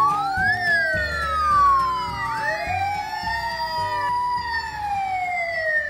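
Several wailing sirens overlapping, each rising and falling slowly in pitch and crossing one another.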